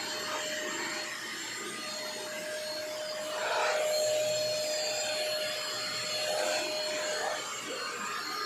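Vacuum cleaner running with a steady whine over its rushing air, getting briefly louder about four seconds in.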